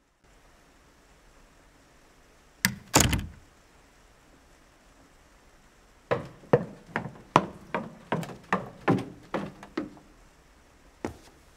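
Two heavy thuds close together about three seconds in, then a steady run of about ten thuds, roughly two and a half a second, and a single thud near the end.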